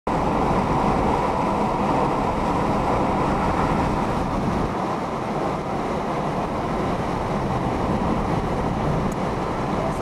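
Steady road and wind noise inside a car cabin while driving at highway speed.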